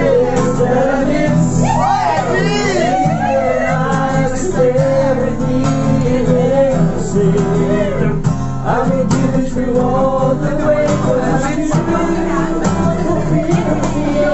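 A serenade song sung with acoustic guitar accompaniment, the voice carrying a continuous melody over steady strummed chords.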